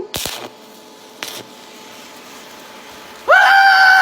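A couple of sharp clicks, then a faint steady hiss, then a loud, high-pitched scream held at one pitch for most of the last second.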